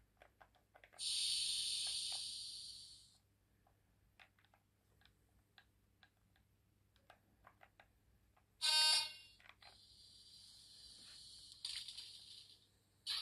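Sound decoder of an H0 model ČSD class 350 electric locomotive playing its effects. About a second in, a loud hiss of compressed air lasts about two seconds and fades. Near the middle comes one short horn blast, then more air hissing, with scattered faint clicks in between.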